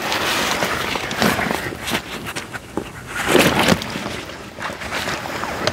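Water sloshing and splashing in a carp cradle as hands work a fish in it. It comes in a few irregular bursts, the loudest a little past the middle.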